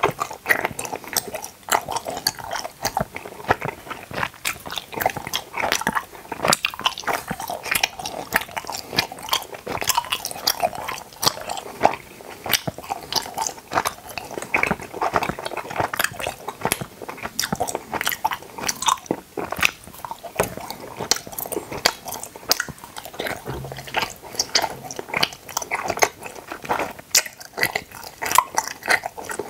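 Tooth-shaped gummy jelly being bitten and chewed close to the microphone: a constant, dense run of sharp mouth clicks and smacks.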